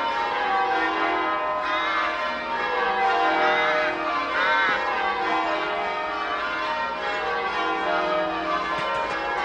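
Church bells pealing in change ringing, many overlapping strokes ringing on. A few short bird calls, rising and falling, sound over the bells.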